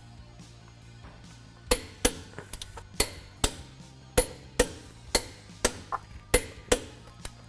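Click-type torque wrench clicking as the lug nuts are brought to 135 foot-pounds: a run of sharp metallic clicks, about two a second, starting a little under two seconds in.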